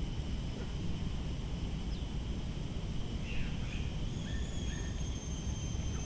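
Outdoor garden ambience: a steady low rumble under a thin, steady high-pitched whine, with a few short bird chirps about halfway through.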